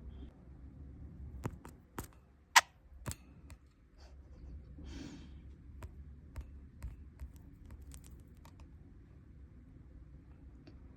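Budgies pecking and tapping at a phone held close to them: a run of irregular sharp clicks and taps, one much louder about two and a half seconds in, with a brief rustle around five seconds.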